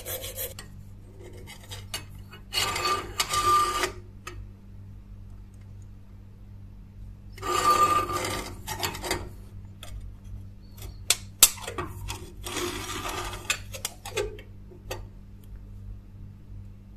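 Metal scraping as a pointed tool works inside a polished metal knife guard, stopping about half a second in. Then come three short bursts of metal clinking and scraping, with a few sharp clicks between them, as the guard is handled and slid onto the steel blade's tang, over a steady low hum.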